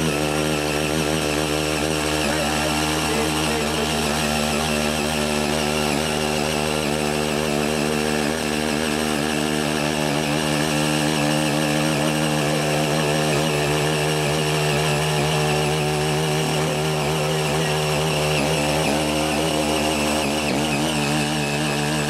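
Small 3.3 hp gasoline engine of a CY80 mini power tiller running steadily at working speed while its six rotary tines till red clay, the engine pitch wavering slightly now and then.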